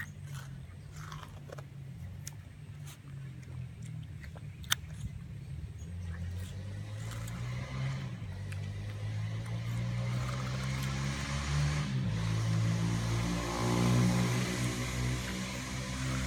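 Puppy biting and chewing a slice of watermelon, with short wet clicks and crunches. A low engine hum grows louder through the second half and is the loudest sound near the end.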